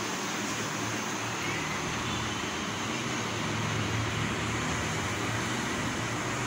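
Steady background noise: an even hiss with a faint low hum underneath, without any distinct knocks or events.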